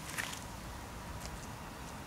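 Outdoor background: a steady low rumble with a few faint, short clicks or scuffs, one just after the start and two more a little past halfway.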